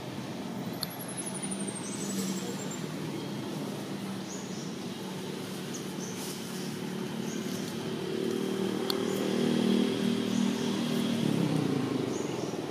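A motor vehicle's engine running in the background, a low steady hum that grows louder about eight seconds in, over outdoor ambience. A thin, high falling whistle comes about a second in.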